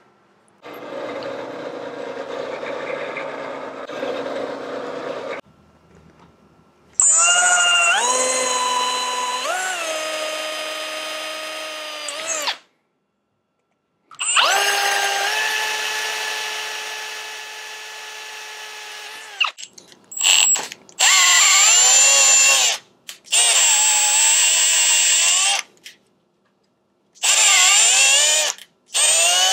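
A drill press boring into a white Teflon block, then a Milwaukee cordless drill drilling holes through steel square tubing in several separate runs. The drill's motor whine steps and sweeps up and down in pitch as the trigger is squeezed and eased, with short pauses between runs.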